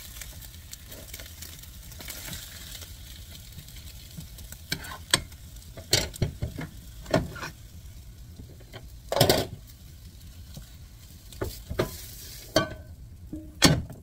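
Egg roll sizzling in a hot nonstick frying pan while a silicone spatula scrapes and turns it. The pan is then lifted and the omelette tipped out onto a wooden cutting board, with a series of sharp knocks and clatters, loudest about nine seconds in. The sizzle dies away near the end.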